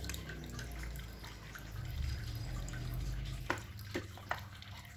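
Ceramic dishes and chopsticks clinking three times in quick succession as a plate of bean sprouts is moved, over a steady low rumble.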